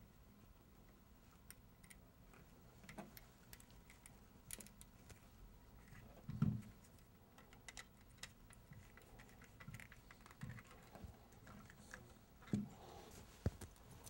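Faint small clicks and scrapes of a screwdriver working the ground-wire screw on an occupancy sensor switch, with wires being handled. Two louder bumps come about halfway through and near the end.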